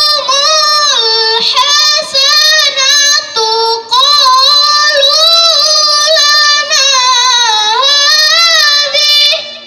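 A girl reciting the Quran in the melodic tilawah style: long, ornamented phrases held on a high voice, with short breaks for breath between them. The last phrase dies away just before the end.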